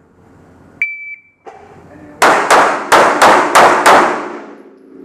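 Shot timer beeps once to start the stage. A little over a second later a pistol fires six rapid shots, about three a second.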